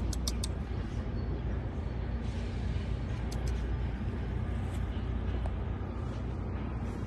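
Steady low outdoor background rumble, with a quick run of short high ticks right at the start and two more about three and a half seconds in.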